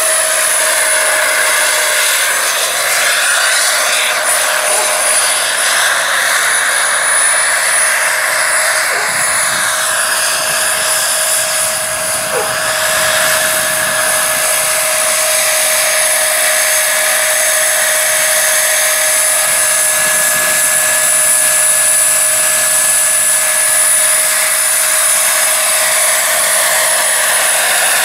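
Turbine-powered RC scale Bell 412 helicopter flying: the steady high whine of its small gas turbine over the whoosh of the rotor blades. The pitch sweeps up and down during the first half as the model manoeuvres.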